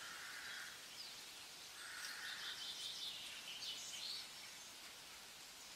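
Faint outdoor ambience with a few brief bird chirps.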